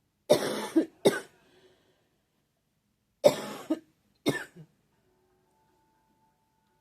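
A person coughing in two bouts, each a quick double cough about three seconds apart; the cough comes from seasonal allergies.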